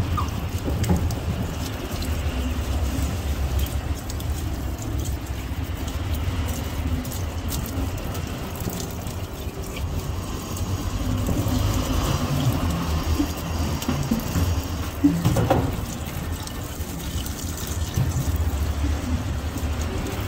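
Tap water running and splashing into a stainless steel sink, with knife scraping and splashing as fish are scaled and rinsed under the stream. A steady low rumble runs underneath.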